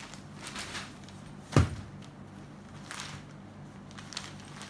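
Cloth rustling as folded sarees are lifted and laid on a tabletop, with a single loud thump about a second and a half in.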